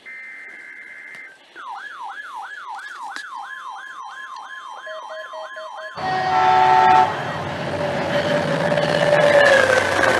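The last burst of an Emergency Alert System header, a harsh warbling data tone, then an electronic siren tone sweeping up and down about three times a second. About six seconds in, a loud blast of several steady tones at once sounds over a noisy rumble that carries on to the end.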